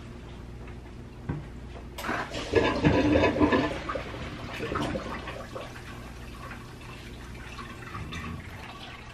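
150-gallon saltwater aquarium's water circulation switched back on with a click about two seconds in. Water gushes and splashes through the plumbing, then settles into a steady rushing flow. This is the running noise that makes the tank too loud to film beside.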